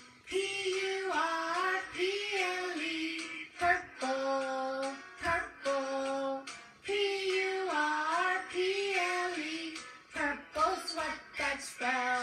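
A children's song: voices singing a melody in phrases over instrumental backing.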